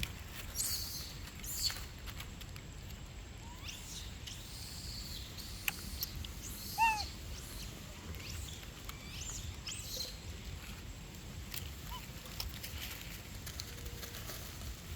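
Outdoor ambience with scattered short, high animal calls and chirps. The loudest is a brief falling call with several overtones about seven seconds in. A steady low rumble runs underneath.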